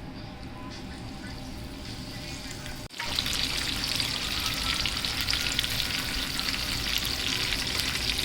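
Battered chicken lollipops deep-frying in hot oil: a dense sizzle with many small crackles. It is quiet for the first few seconds, then starts suddenly and loud about three seconds in.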